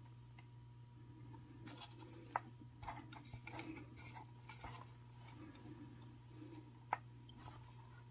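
Faint rustling and rubbing of thin beading cord being pulled through a seed bead and drawn tight, with two sharp little clicks, one a couple of seconds in and one near the end.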